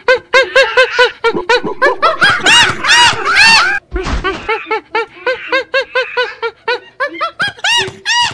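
A rapid run of short, high, monkey-like hoots and screeches, each rising and falling in pitch, several a second. A dull thump about four seconds in.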